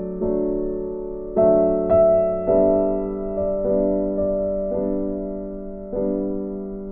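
Background music: slow piano, chords and notes struck about once a second and left to ring out.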